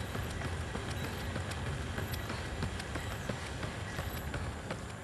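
A runner's shoes striking asphalt in a quick, even rhythm of about three steps a second during a fast interval, over a steady low rumble.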